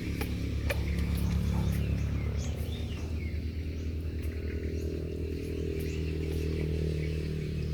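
A steady low mechanical hum, like a small motor running, with faint high chirps and a few light clicks over it.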